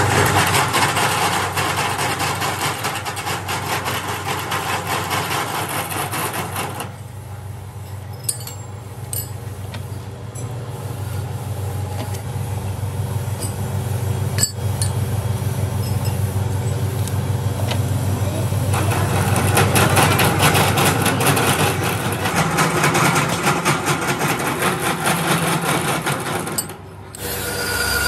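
Workshop machinery running, a dense mechanical noise with rapid rattling and a low hum, with voices mixed in. It drops quieter about seven seconds in and builds up again from about nineteen seconds.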